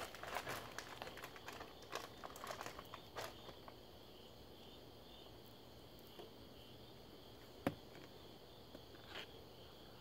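A raccoon moving and eating on a plastic tote lid: quick faint clicks and crackles in the first few seconds, then mostly a steady high insect chirring, with a single sharp tap late on.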